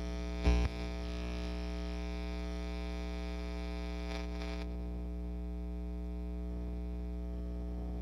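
Steady mains hum and buzz from a guitar rig, a Fender Tweed Deluxe clone amplifier with an Electro-Harmonix Double Muff fuzz pedal switched on, with no note being played. A short low thump about half a second in, and the hiss above the hum drops away a little past halfway.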